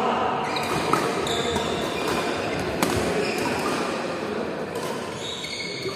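Badminton rackets striking a shuttlecock: two sharp cracks, about a second and nearly three seconds in, with short squeaks of shoes on the court mat.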